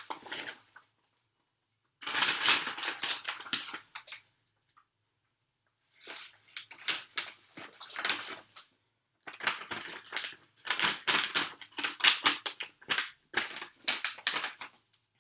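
Freeze-dried salmon chunks being crumbled, a dry crunching crackle that comes in four spells with pauses between, the longest in the second half.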